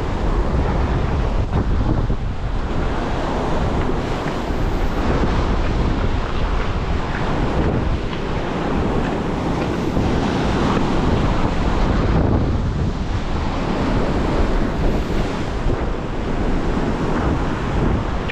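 Strong wind buffeting the microphone over heavy surf breaking on the shore, a dense steady rush.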